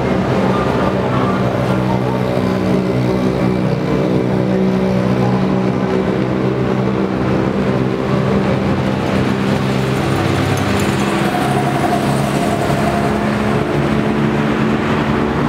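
Motor vehicle engines running with a steady drone as off-road side-by-sides, a small go-kart and a car drive slowly past.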